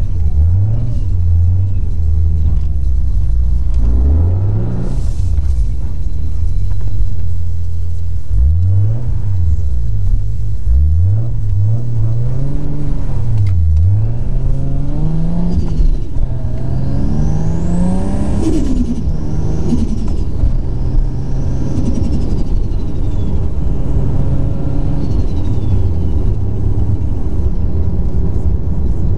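Single-turbo Toyota Supra's 2JZ-GTE straight-six heard from inside the cabin, accelerating through the gears: the engine note climbs and drops again and again at each gear change, then settles into steadier cruising. A faint high whistle rises and falls in pitch about two-thirds of the way through.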